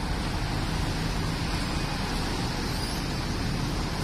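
Steady road traffic noise from a busy multi-lane city street: cars and a city bus running close by.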